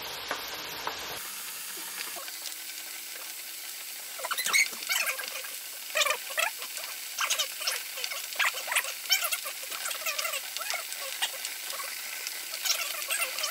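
Cut potatoes deep-frying in hot oil in an electric fryer basket: a steady sizzle with irregular crackles and squeaky chirping pops, growing busier from about four seconds in. It is the first fry at 325°F, with water still boiling out of the potatoes.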